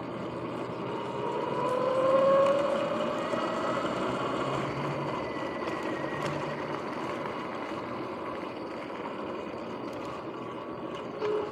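Sur-Ron X electric dirt bike riding under power, its motor and drive whining and rising in pitch as it speeds up about two seconds in, then running on steadily over a rushing noise. Its bearings are noisy.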